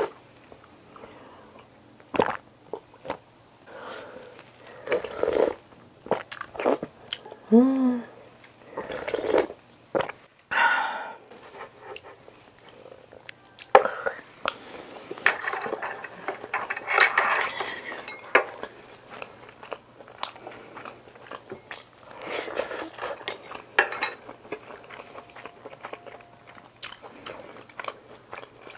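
Spoon and chopsticks clinking and scraping against dishes in irregular short clatters, with chewing and mouth sounds of eating.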